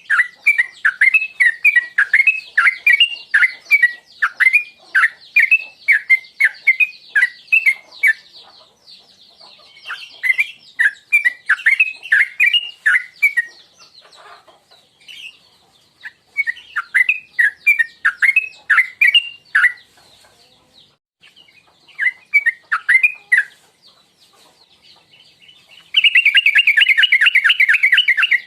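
Yellow-vented bulbul (trucukan) calling in runs of quick, sharp descending chirps, about two or three a second, broken by short pauses. Near the end it switches to a louder, much faster continuous trill.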